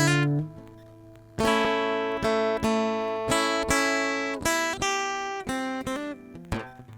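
Instrumental music on a plucked string instrument: a melody of single notes, each struck sharply and ringing away, with a pause of about a second near the start.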